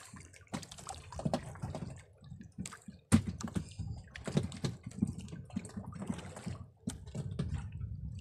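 Water sloshing against the hull of a small wooden outrigger boat, with irregular clicks and knocks as a fishing handline and hooks are handled.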